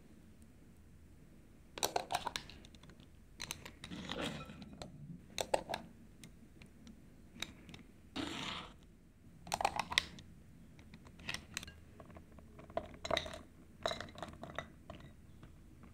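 Intermittent clicks, taps and scrapes of a spoon filling paper liners in a metal muffin tin with thick blueberry muffin batter, in about eight short bursts. Near the end comes the light patter of crumble topping scattered over the batter.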